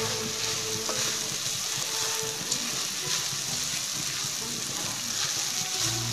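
Coarsely crushed roasted peanuts and fried chilli paste sizzling in hot oil in a pot, stirred and scraped round with a wooden spatula, with a few light knocks of the spatula against the pot.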